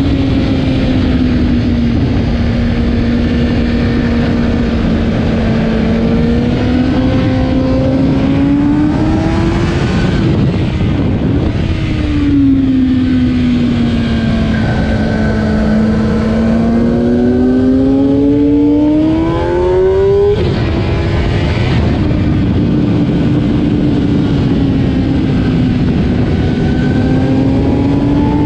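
Stock 2008 Kawasaki ZX10R inline-four at full track pace, its engine note rising and falling in long sweeps as the throttle is opened and closed through the corners. About twenty seconds in, the note climbs high and then cuts off sharply as the throttle is shut, with wind rush heard throughout.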